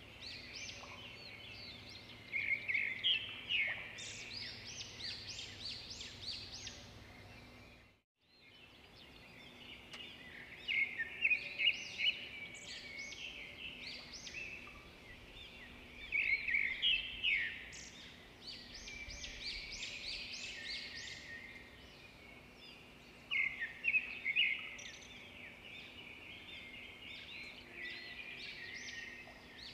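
Birds chirping in clusters of quick high notes every few seconds, over a faint steady hum. The sound cuts out briefly about eight seconds in.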